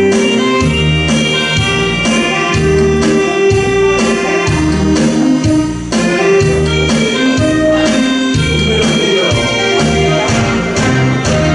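Korean trot song accompaniment playing, with a steady bass beat under a pitched instrumental melody.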